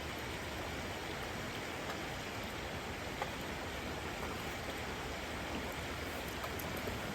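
River water rushing steadily, with a few faint ticks.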